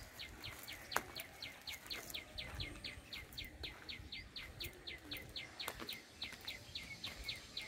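A small bird calling a fast, steady series of short high chirps, about six a second, each note falling in pitch. A single sharp click about a second in.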